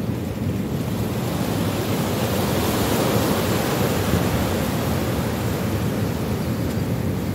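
Wind buffeting the microphone over the wash of sea waves, a steady rushing that swells for a few seconds in the middle.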